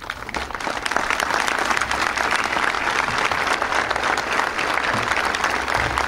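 A large crowd applauding, swelling over the first second and then holding steady.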